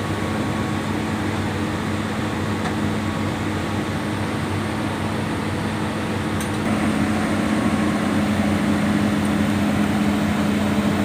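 Hitachi EX200 excavator's diesel engine running steadily under hydraulic load, growing louder about two-thirds of the way through as it works harder.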